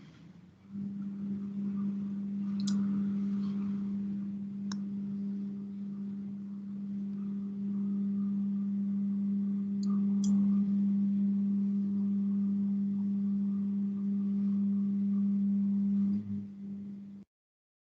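A steady low hum with a few faint clicks, cutting off suddenly near the end.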